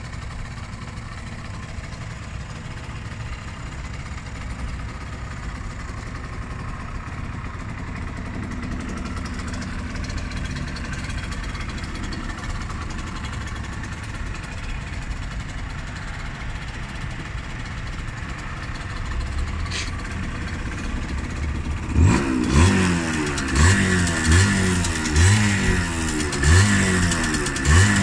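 1985 Suzuki ZR50S's small two-stroke single idling through an aftermarket Micron exhaust, then blipped hard about once a second in a run of short revs starting about three-quarters of the way in.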